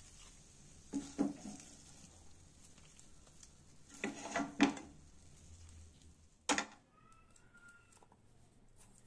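Silicone spatula scraping and pressing mashed potato and fenugreek filling around a nonstick frying pan: soft scrapes about a second in and again around four seconds in, then a short sharp scrape near the end, over a faint steady frying hiss that stops with it.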